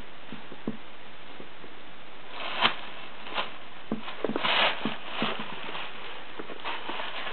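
A baby's hands tapping and rummaging at furniture and a wicker basket: scattered light knocks, a sharper knock a little over two seconds in, and a short rustle around halfway, over a steady hiss.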